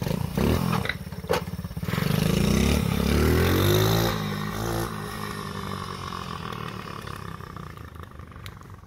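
110cc single-cylinder four-stroke pit bike engine on a converted mobility scooter, revving hard as the scooter accelerates. Its pitch climbs and it is loudest about two to four seconds in, then it settles and fades as the scooter pulls away. A few sharp clacks sound in the first second and a half.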